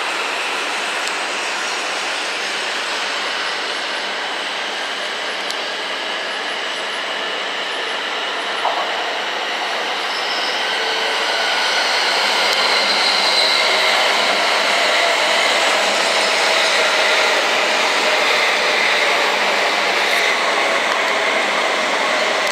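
E7 series Shinkansen pulling into a station platform and slowing, with a steady rushing noise from the passing cars. Faint whining tones fall slowly in pitch, and the sound grows a little louder about halfway as the cars slide past close by.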